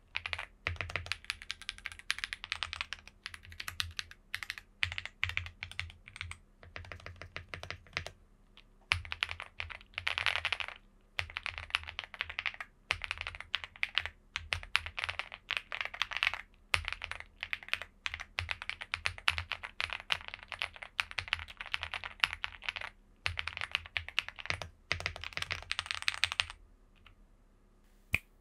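Typing on a Chilkey ND75 mechanical keyboard with an aluminium case, EF Dopamine Blue switches and a silica gel mount: fast, continuous keystroke clacks in bursts. The typing stops a couple of seconds before the end.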